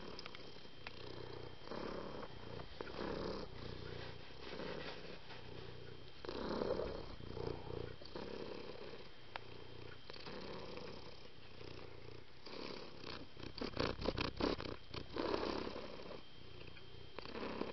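Domestic cat purring close up: a steady rumble that swells and fades with each breath, about every second and a half. A run of quick crackles, the loudest sound, comes about three-quarters of the way through.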